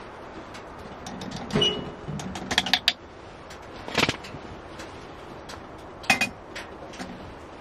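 Small kitchen-handling knocks and clicks: a plastic measuring spoon and a plastic coffee dripper tapping and being set against a stainless steel camp mug. There are a handful of short knocks, with a quick cluster of clicks near the middle and a brief metallic ring near the end.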